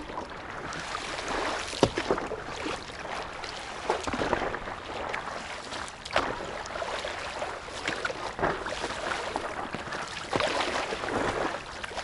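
Water splashing and rushing along the hull of a stand-up paddleboard as it is paddled forward, swelling about every two seconds with each paddle stroke.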